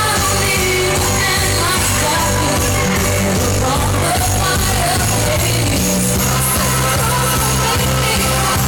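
Loud, steady-beat dance music with a sung vocal.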